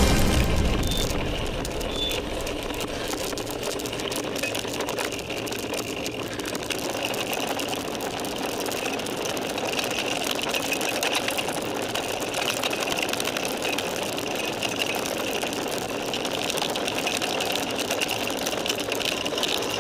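Mountain bike rattling steadily over a rough dirt trail, with tyre and wind noise, heard through a camera mounted on the bike.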